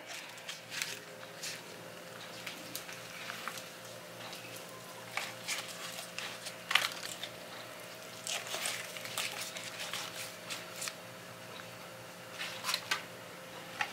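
Banana leaves rustling and crinkling softly in irregular little bursts as leaf-wrapped whole tilapia are handled and laid in a metal wok, over a faint steady hum.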